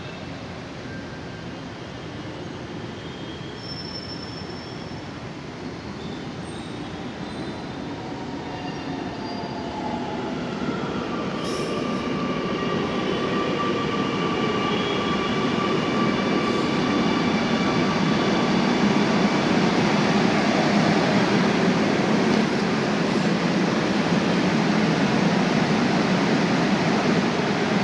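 Kochi Metro train running along the track, growing steadily louder as it approaches, then holding steady, with high whining and squealing tones over the rumble.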